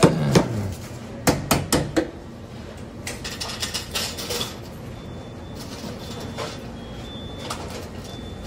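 Clatter at a fast-food counter register: a quick run of four sharp clicks or knocks, then a spell of rustling and clatter, over steady restaurant background with a faint high electronic tone that comes and goes.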